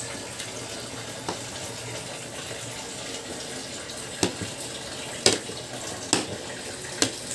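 Kitchen knife slicing through fish balls and knocking sharply on the plate beneath: one knock, then four more about a second apart, over a steady hiss.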